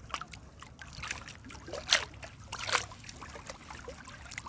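Water splashing and lapping against a boat, with two louder splashes about two seconds in and shortly after.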